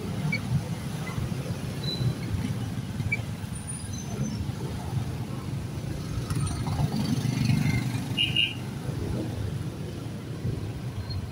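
Steady low rumble of motorcycle engines and road traffic heard from a moving motorcycle, with a brief high-pitched sound about eight seconds in.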